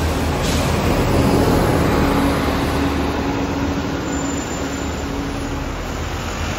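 A Scania K230UB single-deck diesel city bus driving past at close range and pulling away, with a steady whine partway through. The sound eases slightly as the bus moves off.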